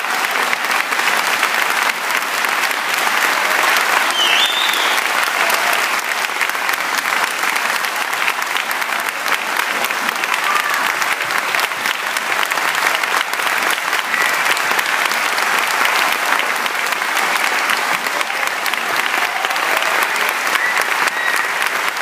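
Audience applauding steadily, a dense continuous clapping that neither swells nor fades.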